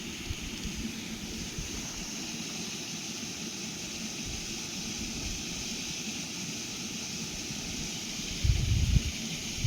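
Outdoor ambience: a steady hiss with wind buffeting the microphone in gusts, much stronger near the end.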